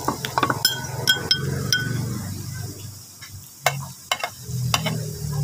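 Plastic bottle of orange soda having its cap twisted open: a run of sharp clicks as the seal breaks and a soft fizz of carbonation in the first two seconds, then a few clicks later as it is drunk from. A low hum runs underneath.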